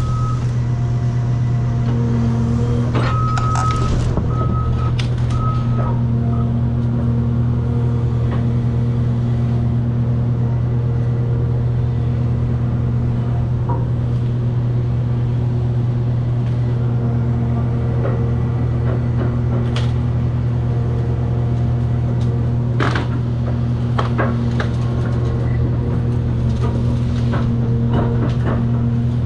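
Cat 336 hydraulic excavator's diesel engine running steadily under load, with a pitched hydraulic whine that comes and goes. A few short beeps sound a few seconds in, and scattered knocks and clatters of demolition debris come later.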